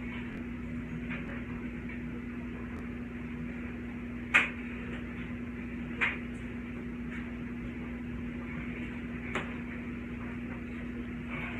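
A steady low hum with a few short sharp knocks. The loudest knock comes about four and a half seconds in, and fainter ones follow about six and nine and a half seconds in.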